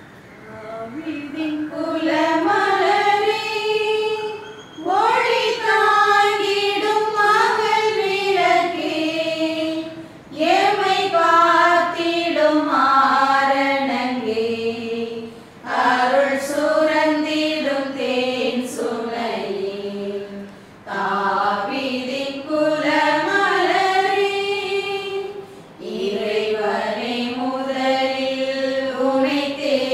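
Choir singing a slow hymn in long held phrases of about four to five seconds each, with short breaks between them.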